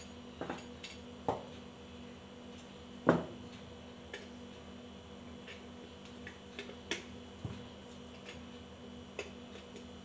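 Scattered light clicks and knocks of ceiling fan body parts being handled and fitted together while the screw holes are lined up, with one louder knock about three seconds in.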